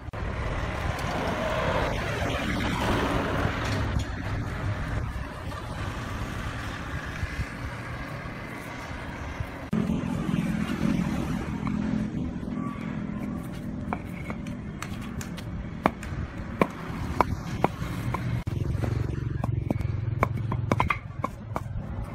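Concrete paver blocks knocking and clacking against each other as they are set by hand into sand, with a run of sharp clicks in the second half, over a steady low rumble.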